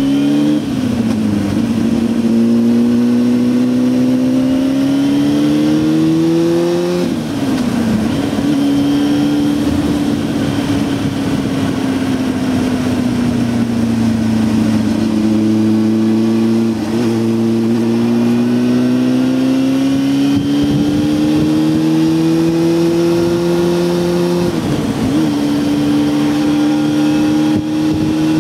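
Honda Hornet 600's inline-four engine running under load while riding. Its pitch climbs, sags slowly and climbs again. It drops sharply for a moment about a quarter of the way in and again near the end, as at an upshift.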